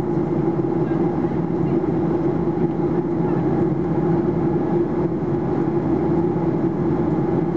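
Steady cabin drone inside a Boeing 737-800 in flight, heard over the wing: the CFM56-7B turbofan engines and the rushing air merge into an even roar with a constant low hum.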